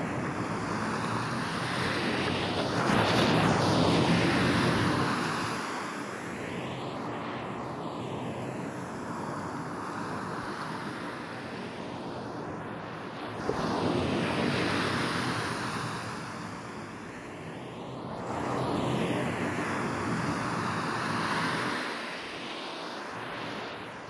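Ocean surf on a beach, waves breaking and washing in several slow swells. It is processed as 8D audio, so the surf seems to pan around the listener.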